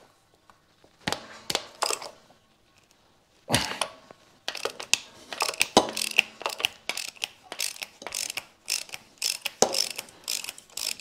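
Socket ratchet wrench clicking rapidly while a glow plug is worked loose on an old diesel engine. A few separate metallic knocks come first, as the socket goes on.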